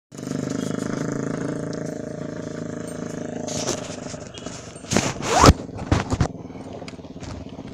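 A motor vehicle's engine hums steadily and fades over the first few seconds. About five seconds in, loud scraping and rubbing on the phone's microphone come as the phone is handled, with a few more knocks about a second later.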